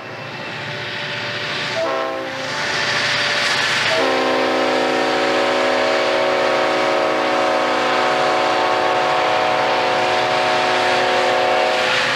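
Diesel freight locomotives approaching and passing close while pulling hard upgrade, the lead unit sounding its air horn of several notes: a short blast about two seconds in, then one long blast held from about four seconds in until just before the end.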